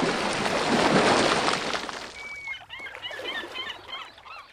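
Logo sound effect: a loud rushing whoosh of noise that fades out over about two seconds, followed by a quick flurry of bird chirps.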